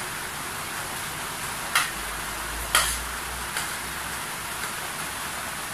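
Spoon and fork clinking sharply against a plate twice, about two and three seconds in, with a lighter clink shortly after, over a steady hiss.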